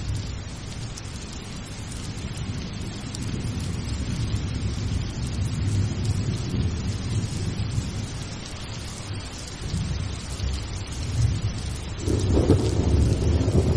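Steady rain with rolling thunder underneath. The thunder swells louder about twelve seconds in.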